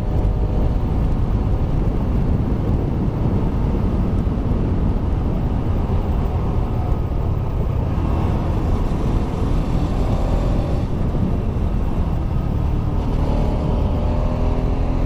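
Kawasaki Rouser RS200's single-cylinder engine running under way, with heavy wind rumble on the microphone. The engine note rises in pitch as it accelerates about eight seconds in and again near the end.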